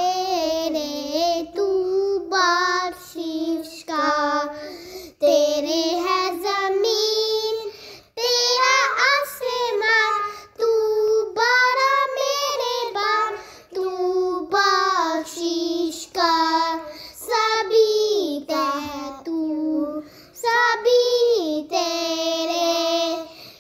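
A child singing a hamd, a devotional song in praise of Allah, in melodic phrases of a second or two with short pauses for breath between them.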